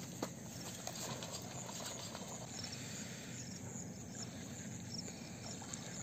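Outdoor ambience with insects chirping in short repeated high pulses over a steady background hiss, and a single sharp click about a quarter second in.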